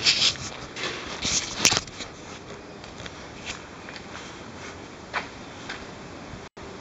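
Footsteps and handling noise from a handheld camera being carried and swung about: scattered clicks and rustles, the loudest in the first two seconds, over a steady background hiss. The sound cuts out for an instant near the end.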